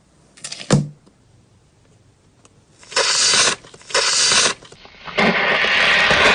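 A knock, then three bursts of crackling and squishing as slime is worked by hand, the last one longer.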